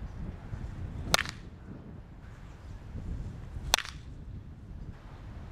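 Baseball bat hitting baseballs in batting practice: two sharp cracks of contact, about two and a half seconds apart, over a low background rumble.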